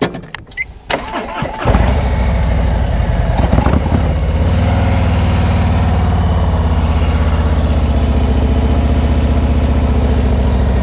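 Harley-Davidson touring motorcycle's V-twin engine starting up suddenly about two seconds in. It then runs at a steady, even rpm, the throttle held while the bike pulls away slowly.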